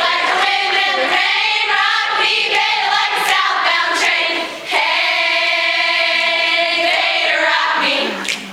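A large choir of young women singing together, with a long held chord in the second half that breaks off near the end.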